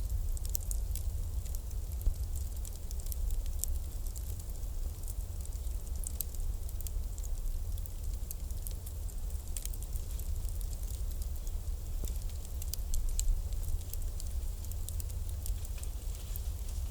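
Bonfire crackling: many scattered small pops and snaps of burning wood over a steady low rumble.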